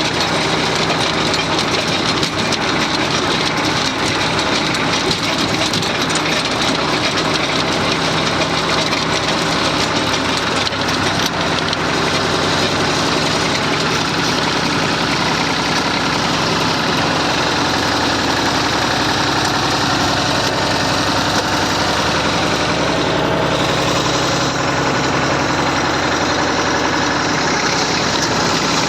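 Massey Ferguson 35 tractor engine running steadily.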